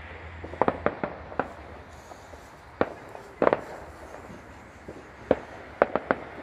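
Aerial firework shells bursting: a string of sharp bangs at irregular intervals, several coming in quick clusters of two or three.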